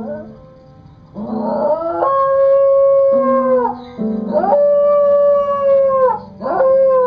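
A dog howling in long, drawn-out notes, each rising at the start, holding steady and sliding down at the end: two long howls and a third beginning near the end. Music plays underneath, as though the dog is howling along to it.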